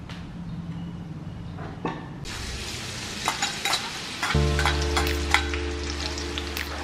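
Hot oil sizzling and crackling in a metal wok, starting about two seconds in, as minced garlic is tipped in and stirred with a metal ladle.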